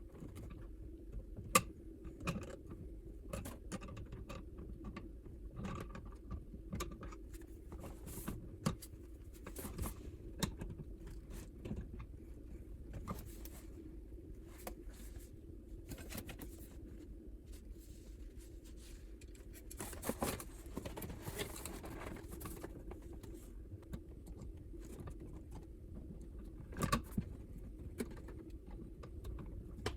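Hand work on household electrical wiring: scattered light clicks, taps and rattles of small metal parts, wire and tools being handled, with a longer scraping rustle about twenty seconds in and a few sharper knocks near the end. A steady low hum runs underneath.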